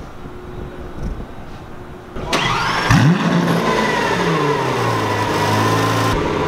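Lamborghini Centenario Roadster's 6.5-litre V12 being started about two seconds in: the revs flare up on catching, then settle into a steady idle.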